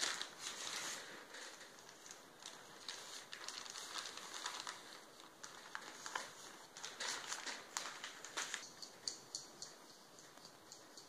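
Confectioner's sugar being sifted through a metal mesh sieve over a glass bowl: a spoon scraping and tapping in the sieve, and more sugar poured in from a plastic bag, making a run of light crackling taps and rustles. The sound is thickest in the middle and thins to scattered ticks near the end.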